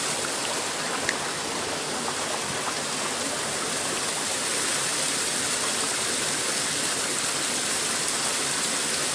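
Small mountain brook rushing steadily over rocks and down a little cascade.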